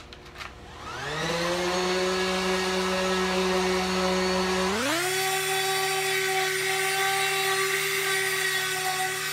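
Electric orbital sander with 60-grit paper starting up about a second in and rising to a steady whine as it works over a cedar log, then stepping up to a higher pitch about five seconds in and holding there.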